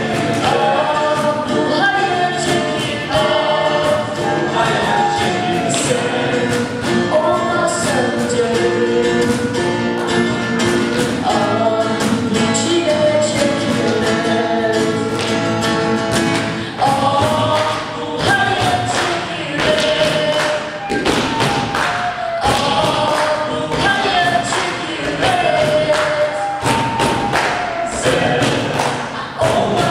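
A group of voices singing a Turkish song together, with frequent thumps, more of them in the second half.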